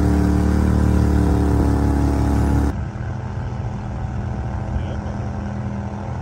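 Gatortail GTR40XD surface-drive mud motor with a Voodoo exhaust running steadily at high revs while pushing through thick vegetation. Nearly three seconds in, the sound drops suddenly to a quieter, steady engine sound that continues to the end.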